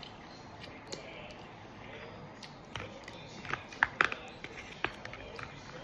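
Handling of a takeout meal: a cluster of sharp clicks and taps, the loudest two close together about four seconds in, over a faint steady background.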